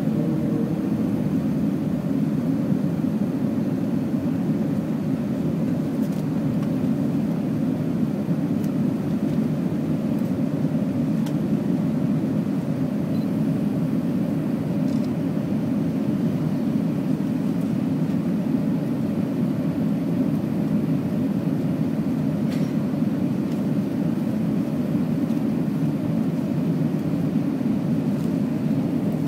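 Steady cabin roar of an Airbus A380 in its climb after takeoff: jet engine and airflow noise heard from a window seat inside the cabin, holding an even level.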